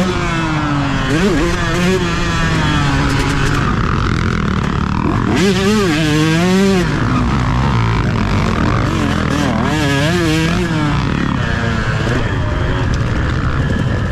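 Two-stroke motocross bike engine revving up and down again and again as the throttle is worked, with rushing wind noise on the helmet-mounted camera.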